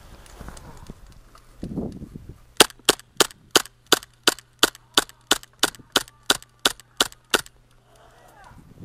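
Gas blowback airsoft gun fired in quick semi-automatic shots: a string of about seventeen sharp cracks at roughly three a second, stopping after about five seconds. A low thump comes shortly before the shooting starts.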